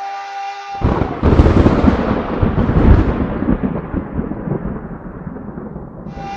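A sustained musical chord is cut off about a second in by a sudden loud deep boom. A long rumbling tail follows and dies away over about five seconds.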